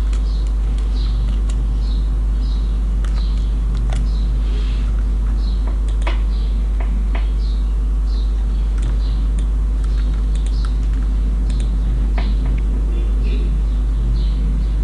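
Computer keyboard keystrokes and mouse clicks, scattered and irregular, as a captcha is typed into a web form and submitted. Under them runs a steady low hum, the loudest thing throughout.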